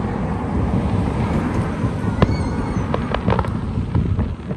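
Distant aerial fireworks popping and crackling, a quick run of sharp cracks in the second half, over the low rumble of a car passing on the road.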